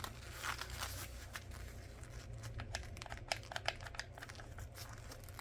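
Plastic packaging rustling and crinkling as it is handled, with a string of small sharp clicks and taps.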